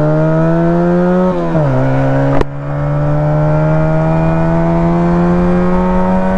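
Exhaust of a 125 cc two-cylinder chopper under way, its revs climbing steadily. About a second and a half in the revs drop for a gear change, there is a sharp click at about two and a half seconds, and then the revs climb again in the next gear.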